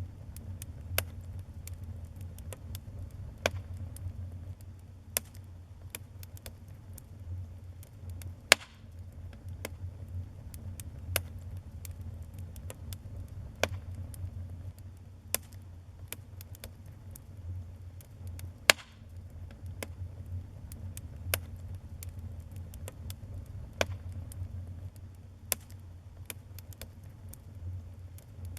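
Wood fire burning in a fireplace, with a steady low rumble of flame and irregular crackles and pops, a few of them sharp and loud.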